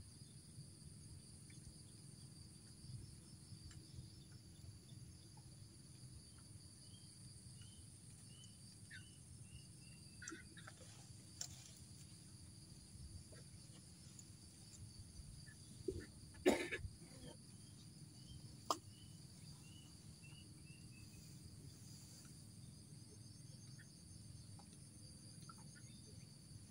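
Faint, steady chirping of insects, with two runs of short falling notes. A few sharp knocks and clatters come from fishing rods being handled, the loudest about two-thirds of the way through.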